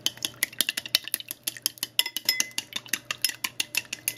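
Wooden chopsticks beating raw eggs in a glass bowl: a fast, steady run of clicks as the sticks strike the glass, many times a second.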